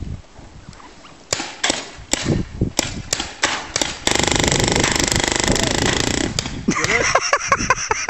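Paintball fire: sharp pops about three a second as paintballs are shot and splat against the corrugated metal wall and barrier, then a loud continuous noise for about two seconds. Voices near the end.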